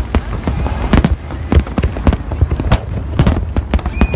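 Fireworks display: rapid, irregular bangs of shells bursting, several a second, over a low continuous rumble. A falling whistle begins near the end.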